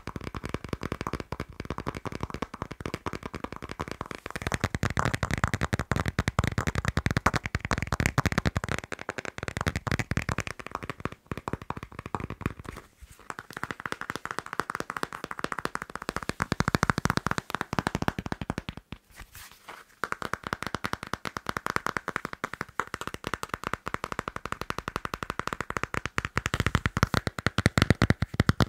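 Fast tapping and scratching on a passport: a dense run of quick clicks and scrapes, pausing briefly about 13 and 19 seconds in.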